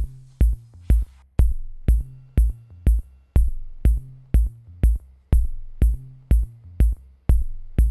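Background electronic music with a steady drum-machine beat, about two kicks a second, over a low bass line.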